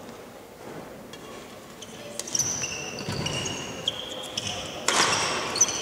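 Badminton players' shoes squeaking on a wooden sports-hall floor during a rally: many short, high squeaks that start abruptly and overlap, growing busier from about two seconds in. Light clicks of rackets hitting the shuttlecock sound among them, with a louder burst about five seconds in.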